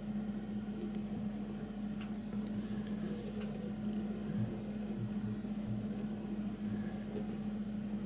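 Faint rustling and scratching of fingers working mink-fur dubbing around a hook held in a fly-tying vise, over a steady low electrical hum.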